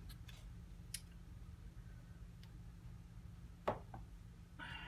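Quiet room tone with a steady low hum and a few faint, sharp clicks, the sharpest about three and a half seconds in, and a short hiss near the end.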